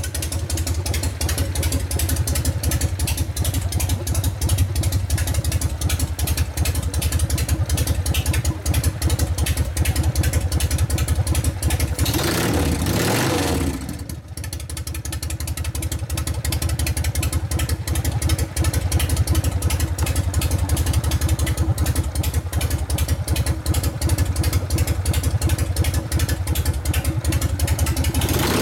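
A Harley-Davidson 80 cubic inch Evolution V-twin engine running on a road test after repairs, its firing pulses steady and loud, with a brief change in sound and a short dip in loudness about halfway through.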